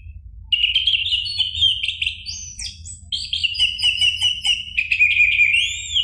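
Orange-headed thrush singing a long, fast, varied song of whistled notes, rattling trills and sweeping glides, starting about half a second in.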